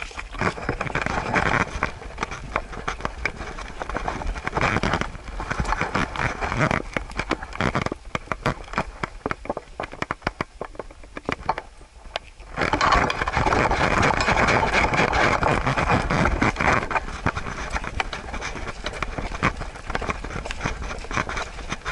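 Handling noise on a camera strapped to a Siberian Husky: dense clicks, scrapes and rustling from the mount and the dog's fur rubbing as it walks and sniffs over dry forest leaf litter. The rustling grows louder and denser about halfway through as the dog moves off.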